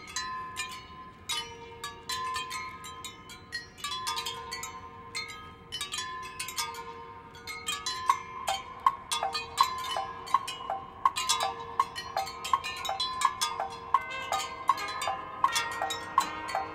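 Marching band front ensemble playing tubular chimes and mallet keyboards, with struck bell notes ringing on. From about halfway in, a single high note repeats evenly about every two-thirds of a second, a clock-tick figure.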